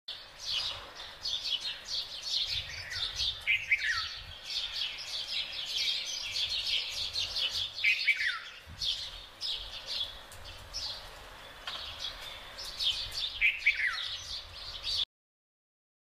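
Small finches chirping rapidly and continuously, with a clear downward-sliding call heard three times, about every five seconds.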